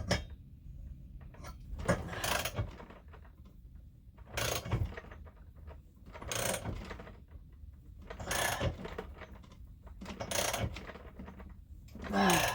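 A socket ratchet clicking in short spells about every two seconds as a thread-repair tap is worked into a spark plug hole, the tap cutting new threads and very stiff to turn.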